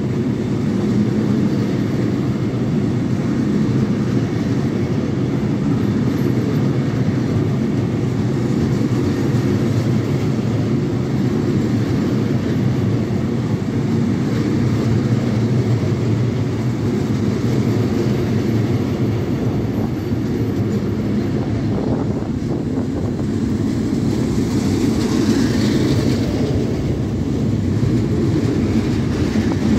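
Yellow Plasser & Theurer track-construction train of ballast hopper wagons and maintenance machines passing on the platform track: a steady low rumble of wheels on rails. A brief higher hiss comes near the end.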